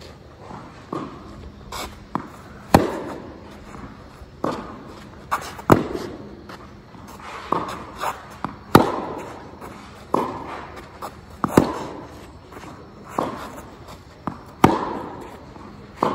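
Tennis rally: a racket strikes the ball with a sharp pop about every three seconds, with softer knocks of the ball bouncing on the court and the far player's shots between, each ringing briefly under the roofed court.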